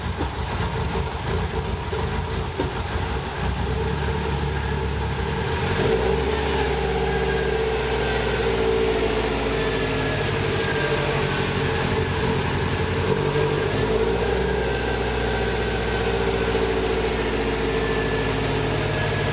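Freshly installed Subaru WRX turbocharged flat-four running in a GC8 Impreza on one of its first runs after the engine swap. It idles steadily and steps up to a slightly higher, louder idle about six seconds in.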